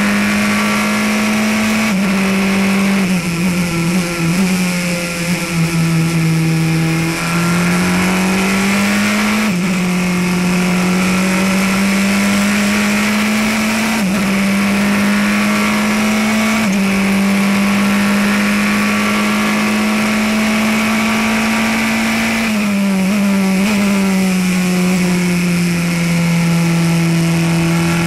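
Praga R1T prototype race car's engine heard from inside the cockpit, running hard at high revs. Its note climbs steadily and drops sharply at each upshift, several times, and twice it falls away lower as the driver comes off the throttle for a corner.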